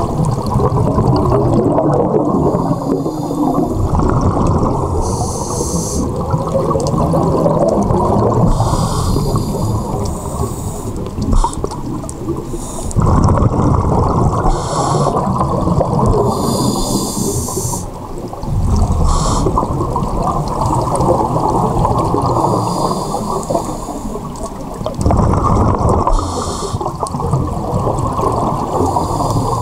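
Scuba regulator breathing underwater, heard through a camera housing: a muffled bubbling rush of exhaled air, broken every few seconds by a short hiss of inhalation.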